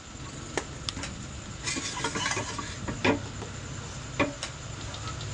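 Chopped chillies and other ingredients being tipped from a plastic colander into a blender jar: scattered light plastic knocks and a patter of pieces dropping in, loudest about two seconds in, over a low steady hum.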